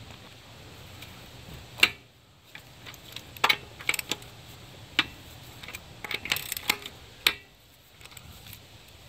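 A breaker bar and 22 mm socket clicking and clanking against the lug nuts of a car wheel as the nuts are broken loose and the socket is moved from nut to nut: a series of sharp metallic clicks, the loudest about two seconds in.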